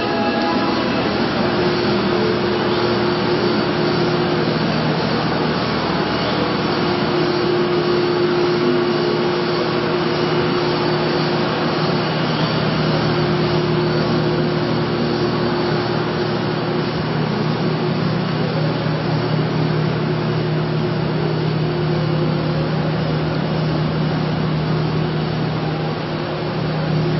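Steady, loud machine noise: a whooshing hum over a low drone, with a higher tone that fades in and out several times.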